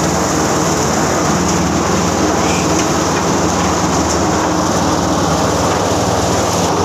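Electric chicken-plucking machine running steadily, a continuous motor hum under a wash of noise.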